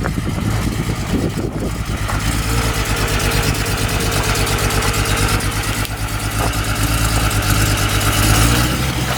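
The 2.8-litre VR6 engine of a Mk2 Golf idles with a misfire, the revs starting to rise near the end.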